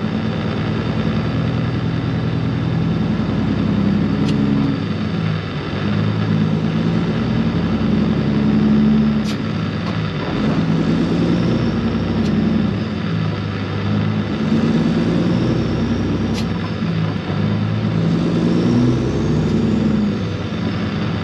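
Semi truck's diesel engine pulling a heavy load at low speed, its pitch stepping up and down every second or two, with a few sharp ticks.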